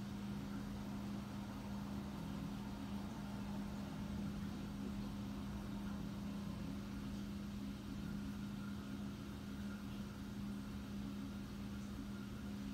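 Street traffic heard muffled through a window, cars passing over a constant low hum.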